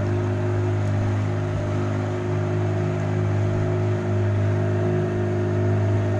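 Fishing boat's engine running steadily, a constant low hum that does not change in pitch or level.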